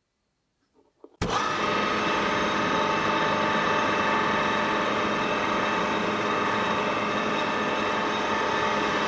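Metal lathe running steadily while a homemade square rotary broach in the tailstock cuts a square socket into the spinning workpiece, a dense mechanical whir with several steady tones. It starts abruptly about a second in.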